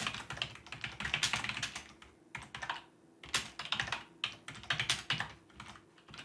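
Typing on a computer keyboard: quick runs of keystrokes, with a short pause about two seconds in.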